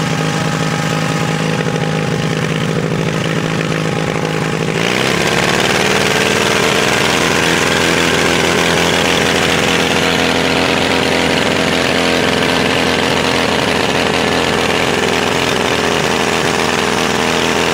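Petrol engine of a 1930 Rosenbauer portable fire pump running. About five seconds in it revs up sharply, climbs in pitch and holds steady at the higher speed.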